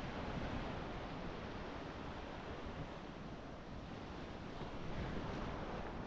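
Atlantic Ocean surf washing ashore in a steady wash of noise, swelling a little about five seconds in, with wind rumbling on the microphone.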